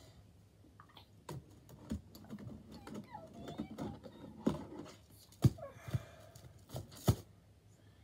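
Irregular taps, knocks and light clatter of small objects and card being handled on a hard surface, a few louder knocks in the second half.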